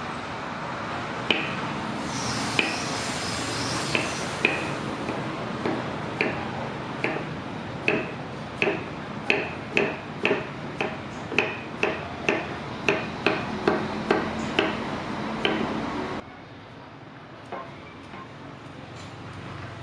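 Hammer striking steel on an anvil, about twenty ringing blows, spaced out at first and then coming steadily at roughly two a second, over a steady rushing noise that cuts off abruptly near the end.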